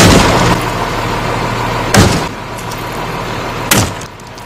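Hammer blows striking a truck's front fender and red marker light: three sharp bangs about two seconds apart, with red pieces of the light's lens breaking off.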